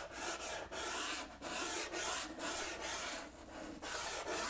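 Soft pastel stick rasping across 400-grit sanded pastel paper in repeated strokes as colour is laid in, with a brief pause a little after three seconds in.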